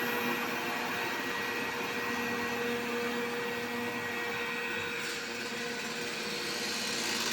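Robot vacuum cleaner running with a steady hum and a high whine over the noise of its suction, the extraneous noise that the owner puts down to a non-original main brush shifting in its housing as it turns.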